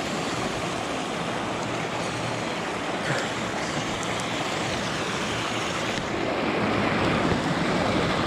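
Steady rushing noise of wind and water, with a faint low hum underneath, growing a little louder near the end.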